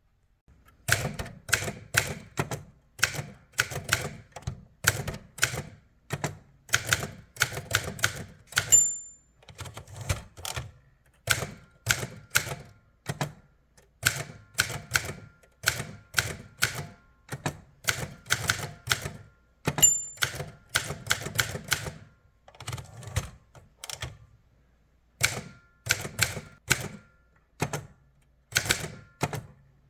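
Typing on a 1969 Remington Mark II portable typewriter: fast runs of sharp key and typebar strikes in bursts, broken by short pauses. A short high ring comes twice, about nine and twenty seconds in.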